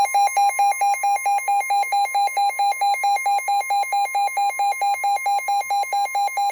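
A NOAA Weather Radio alert on a Midland WR120B weather radio: the radio's alarm beeps rapidly, about four to five times a second, over the steady 1050 Hz warning alarm tone. Together they signal an incoming severe thunderstorm warning.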